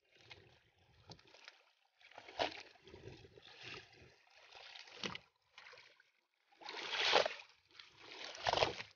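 Water splashing and sloshing against a boat's hull in uneven surges as a hooked blue shark thrashes alongside. The biggest splashes come about two-thirds of the way through.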